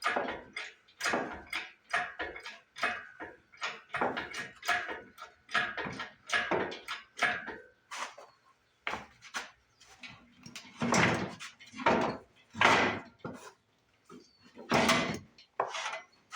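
Irregular clanks, knocks and scrapes of metal being handled as a lawn-mower engine is worked loose, with a few longer, louder noisy bursts in the second half.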